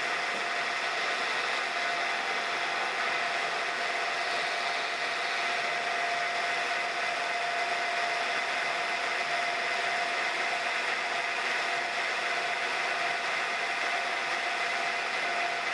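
Milling machine spindle running steadily with a constant whine while it turns an edge finder to locate the center of a shaft.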